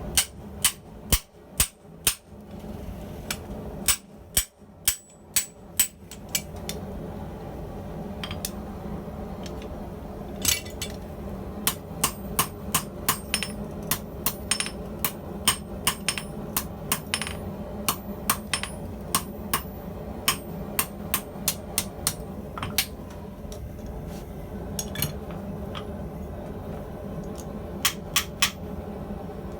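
Hand hammer striking hot steel tubing on an anvil in bursts of blows, with a long run of steady blows at about two a second in the middle, over a steady low hum.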